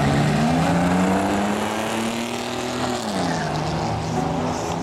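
2006 Pontiac GTO's 6.0 L LS2 V8, with long-tube headers and a full 3-inch exhaust, revving during a burnout in the water box, rear tyres spinning and smoking. The pitch climbs steadily for about three seconds, then drops sharply as the throttle comes off and settles lower.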